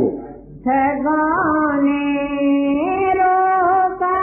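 Singing begins: a voice holds long, steady notes, stepping up once in pitch near the end, opening a slow devotional hymn.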